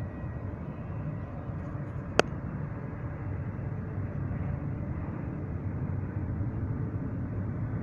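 Union Pacific intermodal freight train rolling past at speed, a steady low rumble that grows slightly louder, with one sharp click about two seconds in.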